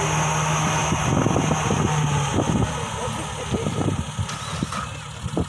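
Off-road vehicle engine running, with a steady hum through the first couple of seconds and scattered irregular knocks.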